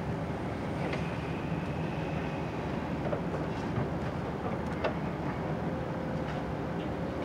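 Hydraulic excavator's diesel engine running steadily as it tears down a building, with scattered sharp clanks and cracks of breaking debris.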